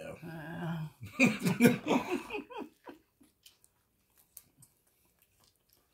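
A person's voice laughing briefly for the first couple of seconds, then faint, scattered clicks of a person biting into and chewing a fried chicken sandwich.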